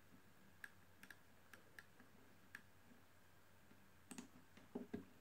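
Faint, scattered clicks of a computer mouse, about six in the first two and a half seconds, against near silence.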